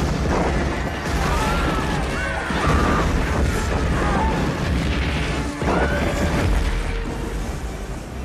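Movie soundtrack of a meteor strike on a city: repeated booming explosions and crashing debris over dramatic music.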